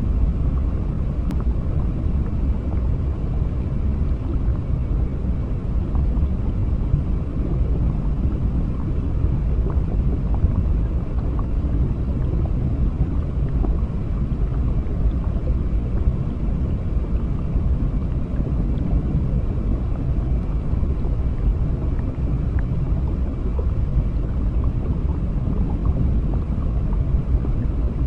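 Underwater ambience: a steady, deep rumbling wash of water with no music and no distinct events.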